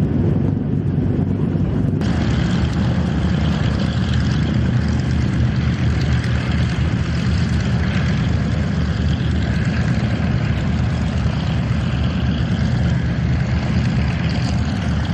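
Catalina flying boat's twin Pratt & Whitney R-1830 Twin Wasp radial engines running steadily, a deep, even propeller drone. About two seconds in, a brighter rushing hiss suddenly gets louder over the drone.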